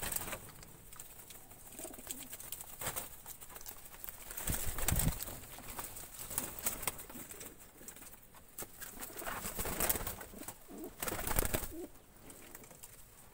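Pigeons cooing in a loft, with rustling and a few louder knocks from handling close against the plastic crate nest boxes.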